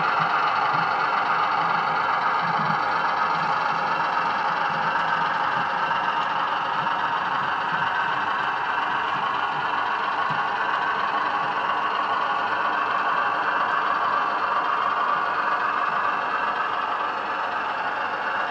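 Bachmann 00 gauge Cravens class 105 DMU model running on the layout: a steady whir and rattle of wheels on model track, mixed with the sound decoder's diesel engine note. It eases slightly near the end.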